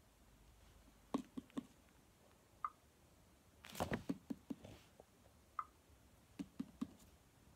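Faint scattered taps and knocks on a Hatchimal toy egg, coming in small clusters, with a couple of short high blips between them.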